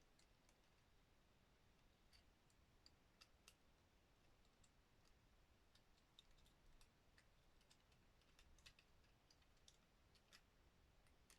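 Faint, irregular small clicks of hard plastic action-figure parts being handled and shifted, as a Studio Series Transformers figure is worked through its transformation, over near silence.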